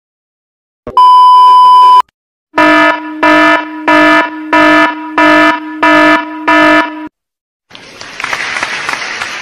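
A run of sound-effect clips: a steady beep held for about a second, then a harsh alarm buzzer sounding seven times in a row, then a rushing hiss that fades out near the end.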